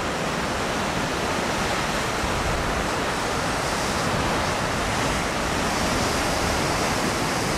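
Steady rushing noise of ocean surf breaking, an even wash with no distinct crashes.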